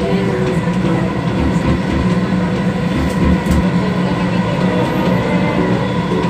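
Dubai Metro train running at speed, heard from inside the carriage: a steady rumble of wheels and running gear with a constant hum and faint steady tones above it.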